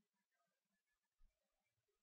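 Near silence: a gap in a screen-recording soundtrack.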